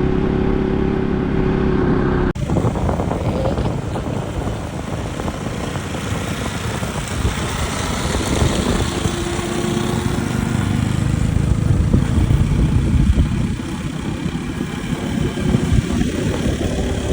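Motorcycle engine running steadily as it is ridden up a road, with a dense low rumble under it. The sound breaks off sharply for an instant about two seconds in.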